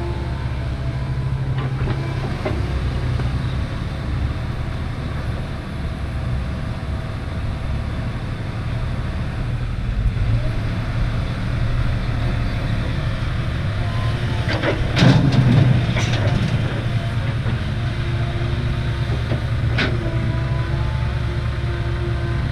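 Diesel engines of a six-wheel dump truck and a Komatsu excavator running steadily as the truck moves into position beside the digger. A short burst of loud metal clanking and knocking comes about fifteen seconds in.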